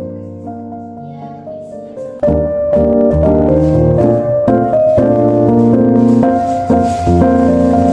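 Instrumental background music with piano; it suddenly grows much louder and fuller about two seconds in.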